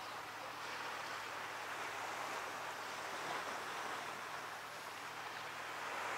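Steady rush of water and wind around a boat under way, with a faint low hum beneath it.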